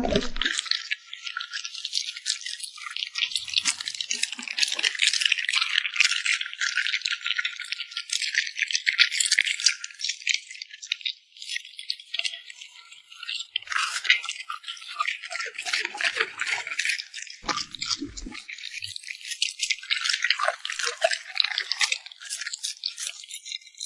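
Dogs crunching and chewing crisp food: a rapid, dense crackle of small bites and crunches, with brief pauses.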